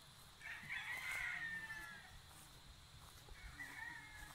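Gamecocks crowing: one crow starting about half a second in, ending with a falling tail, then a second, fainter crow near the end.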